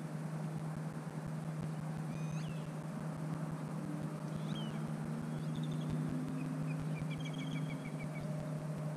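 Small birds calling: a few short chirps about two seconds in and again around four to five seconds, then a quick run of evenly repeated notes near the end. Under them runs a steady low hum.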